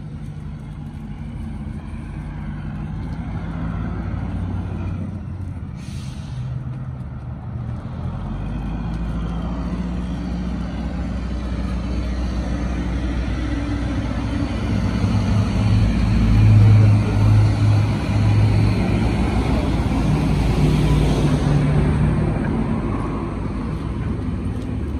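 Motor vehicle engines running in street traffic, a steady low hum that grows louder toward the middle and stays loud near the end, with a short hiss about six seconds in.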